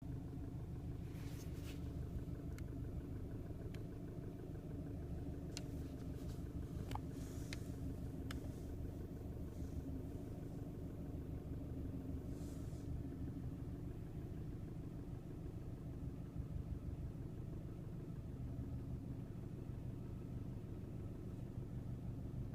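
2008 Subaru Legacy GT's 2.5-litre turbocharged flat-four idling steadily with a knocking, clicking noise that the owner hears only at idle, not while driving. A few sharp clicks stand out in the first eight seconds or so.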